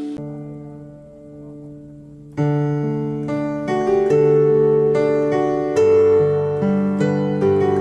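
Intro music played on electric piano: soft held notes, then from about two and a half seconds in a louder run of struck notes changing every half second or so.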